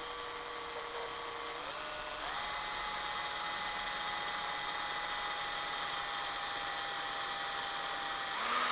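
Electric drill spinning a brass wire wheel brush against a Tecumseh cylinder head, scrubbing off carbon: a steady motor whine over a scratchy hiss. The whine steps up in pitch about two seconds in as the drill speeds up, then changes pitch and gets a little louder near the end.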